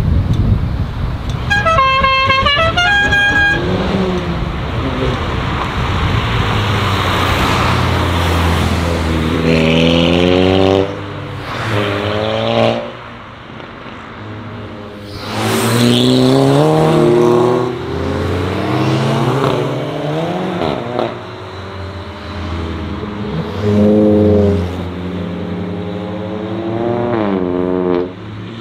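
Modified cars accelerating hard away one after another, their engines revving up in rising sweeps as each car passes. A car horn sounds twice about two seconds in.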